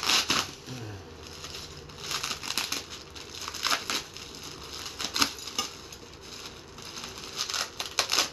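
Packaging crinkling and rustling in irregular bursts, several handfuls over a few seconds, as parts are unwrapped and handled.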